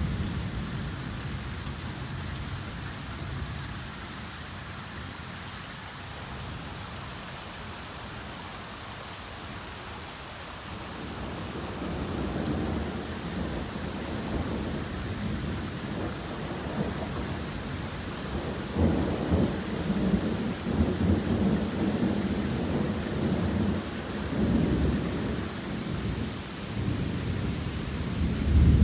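Heavy tropical downpour pouring steadily, with rolling thunder. A rumble dies away over the first few seconds, then thunder builds again about a third of the way in and swells, loudest near the end.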